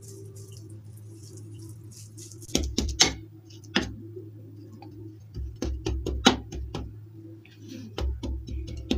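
Metal spatula pressing and patting a crumbly mysore pak mixture flat in an aluminium tin, with scattered sharp taps and knocks of the spatula against the mixture and tin, several in quick runs in the second half. A steady low hum lies under it.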